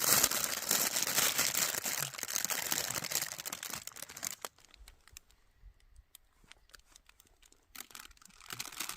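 Wrapper of a lemon loaf being crinkled and torn open, loudest for the first four seconds or so, then quieter with scattered small rustles and clicks, and more rustling near the end.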